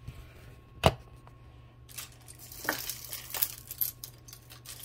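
Costume jewelry clinking and rattling as it is handled and set on display stands: one sharp tap about a second in, then a run of light clicks and jingles.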